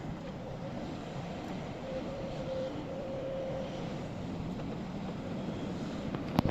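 Excavator's diesel engine running steadily, with a faint steady whine above the rumble and a few sharp knocks right at the end.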